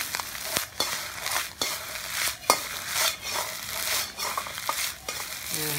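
Instant noodles with egg and vegetables sizzling in a hot wok while a metal wok ladle stirs and tosses them, with irregular knocks and scrapes of the ladle against the wok.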